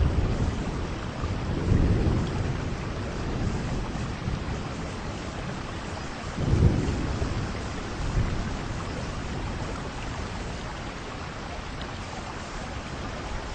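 Heavy rain falling steadily with wind, and a few deep rumbles that swell and fade, the strongest about six and a half seconds in.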